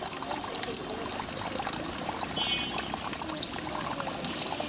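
Water trickling and pouring steadily, with a dense crackle. A brief high-pitched tone sounds about two and a half seconds in.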